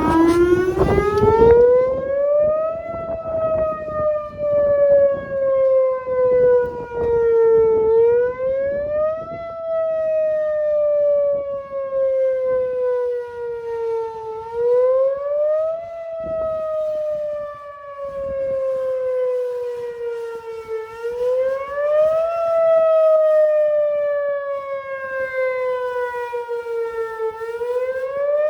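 Whelen Vortex R4 tornado siren winding up. Its pitch then cycles up and down about every six and a half seconds, climbing quickly and sliding down slowly.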